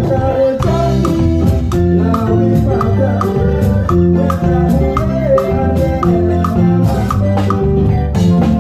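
A band playing Latin-style music, with conga and bongo sounds from a Roland SPD-20 electronic percussion pad struck with drumsticks. Regular percussion strikes run over steady pitched bass and keyboard notes.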